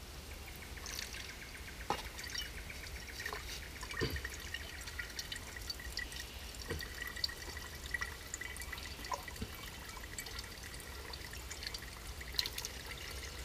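Filtered water trickling and dripping from the tip of a saturated canvas Millbank filter bag into a pot below, with scattered small drip ticks.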